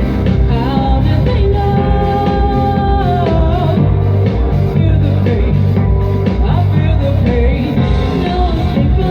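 A rock band playing live: bass and a steady drum beat under a singing voice that holds long, sliding notes.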